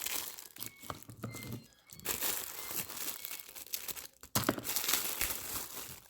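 Packaging being handled while shoes are unwrapped: crinkling and rustling with a few sharp crackles, pausing briefly twice.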